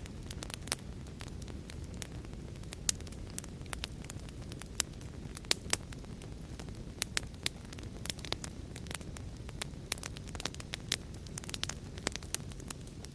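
Wood fire crackling: a steady low rumble of burning with irregular sharp pops and snaps, several a second.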